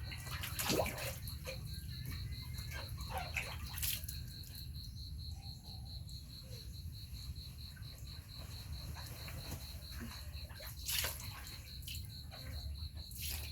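Insects chirping in a steady rapid pulse over a low hum. A few brief splashes of water come through, the loudest about a second in and again near the end.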